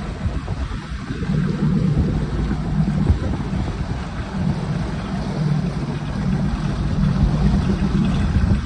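Outboard boat motor running steadily, with wind rushing over the microphone.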